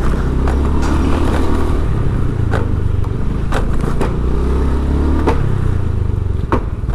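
A motor vehicle engine running steadily with a low hum, with several sharp clicks or knocks scattered through it.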